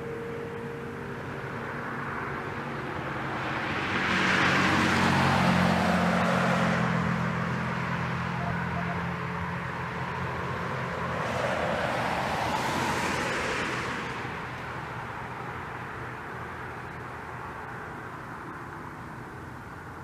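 Two road vehicles passing, each a swell of tyre and engine noise that rises and fades: the louder one about four seconds in, a second about eleven seconds in.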